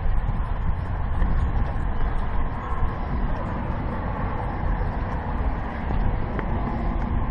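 Wind buffeting the microphone outdoors: a continuous low rumble that rises and falls in uneven gusts.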